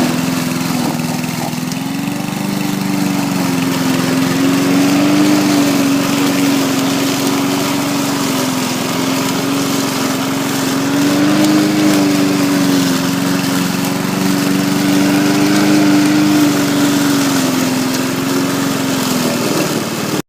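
Lawnmower running steadily, its hum rising and dipping slightly in pitch a few times.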